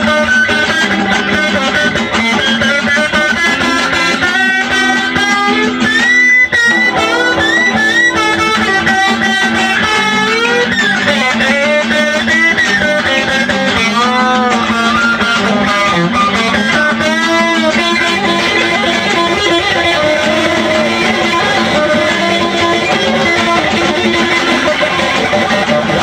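Electric guitar playing a melody with frequent swooping pitch bends that slide up and down, over a sustained low note.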